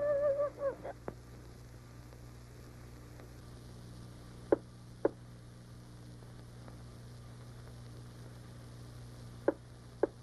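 A young girl's crying wail trails off in the first second. Then a few short sobs come over a faint steady hum, two around the middle and three near the end.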